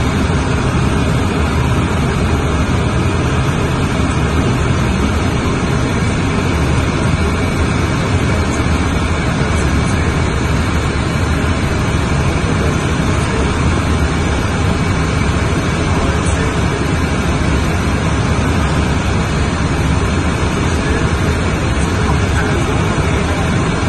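Cabin noise in the cockpit of a Cessna Citation M2 business jet on final approach: the turbofan engines and the airflow over the airframe make an even, unbroken rushing noise, heaviest in the low range.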